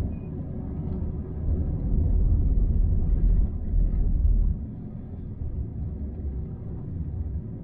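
Low rumble of road and engine noise inside a moving car's cabin. It swells for a couple of seconds, then eases off a little past halfway.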